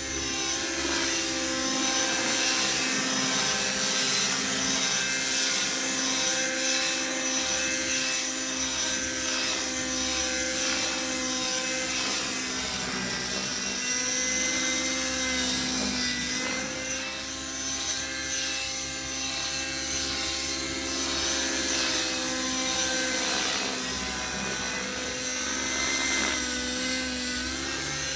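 Align T-Rex 600 nitro RC helicopter in flight: its glow engine and rotor blades make a steady high whine. The engine pitch dips briefly a few times as the helicopter is flown through manoeuvres.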